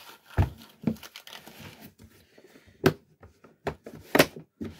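Hard plastic PeakTech carrying case being handled and set down on carpet: a dull thump, then several sharp plastic knocks and clicks, the loudest just after four seconds, with light crinkling of a plastic vacuum bag.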